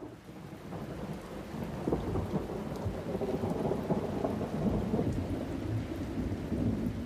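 Steady rain with a low rumble of thunder, fading in from silence over the first couple of seconds.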